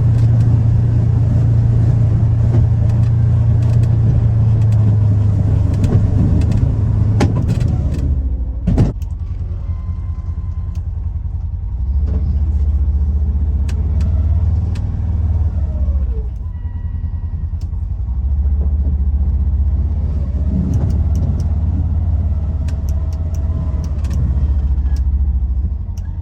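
Polaris Ranger XP 1000 UTV engine running steadily. About eight seconds in, after a sharp click, it settles into a lower, deeper hum.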